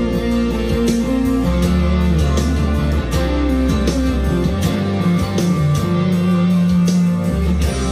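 Monoprice Indio Cali Classic Strat-style electric guitar playing single-note lead lines with bends over a slow ballad backing track in F, with bass and drums.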